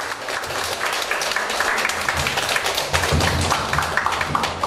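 Audience applauding, a dense patter of hand claps, with instrumental music playing underneath.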